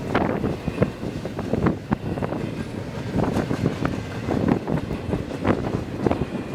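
Intermodal freight train's double-stack container cars rumbling and clattering past, with strong gusty wind buffeting the microphone.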